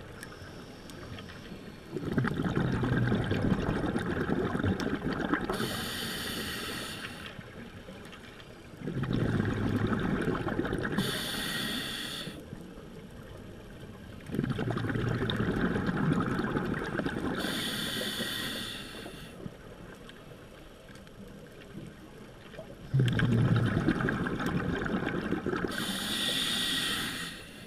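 Scuba regulator breathing underwater: a short hiss on each inhale, then a longer, louder bubbling burst of exhaled air, about four breaths in all, each several seconds apart.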